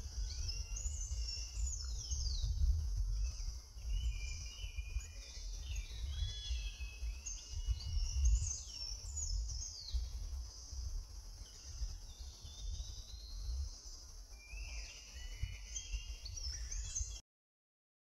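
Several birds chirping and calling with quick sweeping whistled notes, over a steady high insect hum and a low rumble. The sound cuts off abruptly near the end.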